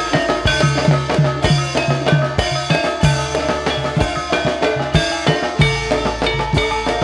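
Banyumasan gamelan playing ebeg dance music: hand drums beating a quick, steady rhythm under ringing, interlocking pitched percussion and gongs.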